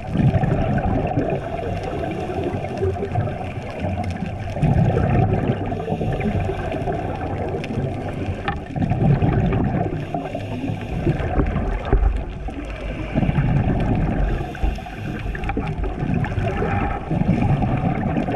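Scuba regulator exhaust bubbles gurgling underwater in repeated bursts about every four seconds, the rhythm of a diver's breathing, over a steady underwater rumble.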